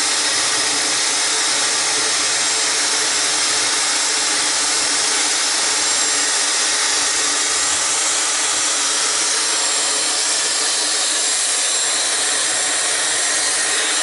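Dyson Supersonic hair dryer running steadily, a constant rush of blown air aimed at the hair.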